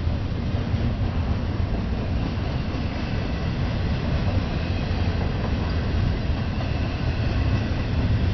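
Intermodal freight train rolling past: a steady low rumble of wheels and cars, with faint high-pitched tones coming in a few seconds in.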